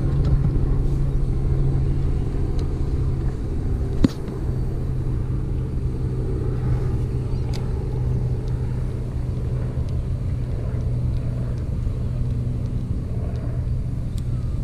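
A boat's motor running with a steady low hum, and one sharp click about four seconds in.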